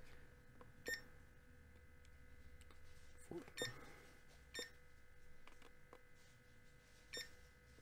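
Digital LED desk alarm clock beeping at button presses: four short, high electronic beeps spread over several seconds, with faint handling noise between them.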